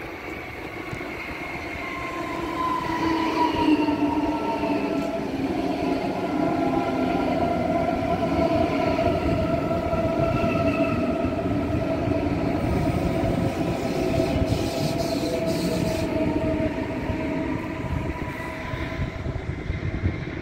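Munich S-Bahn class 423 electric multiple units running past, the sound building over the first few seconds. Several whining tones slowly slide in pitch over a heavy rumble of wheels on rails.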